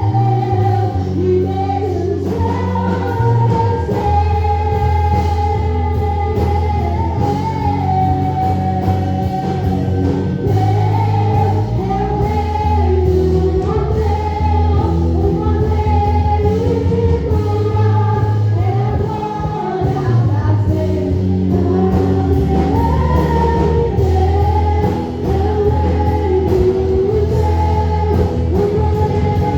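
Gospel worship music: voices singing over a band with sustained bass notes.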